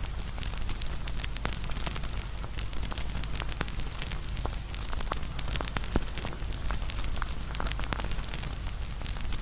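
Crackling fire: a steady run of irregular pops and snaps over a low, even rumble.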